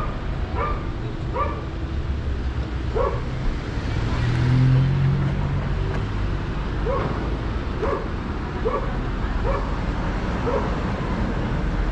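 A dog barking repeatedly, roughly one bark every second, in two runs with a pause in the middle. During the pause a vehicle's low rumble swells and fades.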